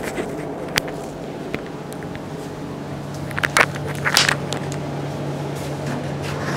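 Footsteps and scattered knocks of people moving about a small room, with a few louder clatters about three and a half to four seconds in, over a steady low hum.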